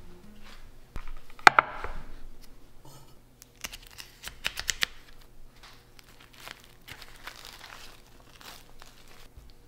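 Plastic cling wrap on a meat tray being slit with a knife and peeled back, crinkling and tearing in short bursts, with one sharp snap about a second and a half in.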